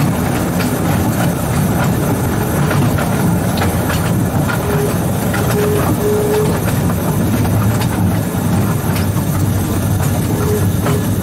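Small 2-foot-gauge electric locomotive running along the track: a steady low rumble of the motors and wheels, with irregular clicks and knocks from the rail, and a few brief squeaks about halfway through and again near the end.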